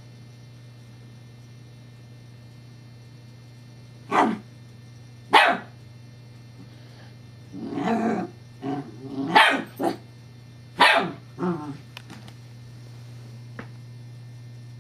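Scottish terrier puppy barking: two sharp single barks about four and five seconds in, then a quicker, denser run of barks through the middle, stopping a few seconds before the end.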